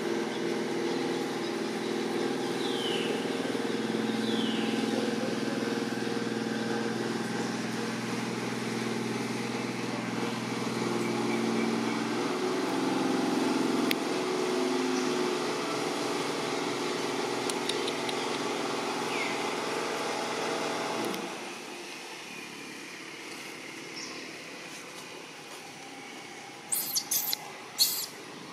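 A motor vehicle engine idling steadily, cutting off about 21 seconds in, with a few faint short chirps over it. Near the end come several short, loud, shrill sounds.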